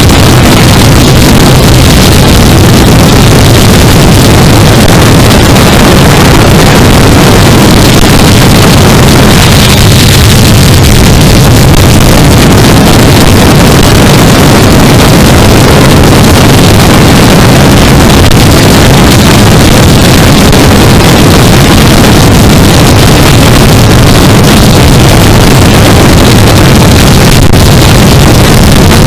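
Yamaha R3 motorcycle's parallel-twin engine running steadily at highway speed, mixed with loud wind rush on the microphone.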